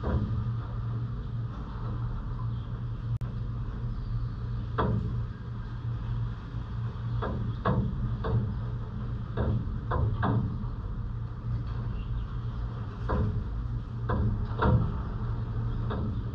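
Steady low rumble of city traffic under irregular sharp taps of rainwater dripping onto a hard surface, the drips coming in clusters about seven to ten seconds in and again a few seconds before the end.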